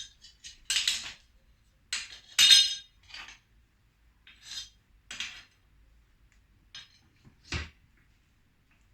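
Metal tools and parts clinking and clanking as they are handled and set down. There is a string of separate knocks, with the loudest ringing clinks about one and two and a half seconds in and a duller knock near the end.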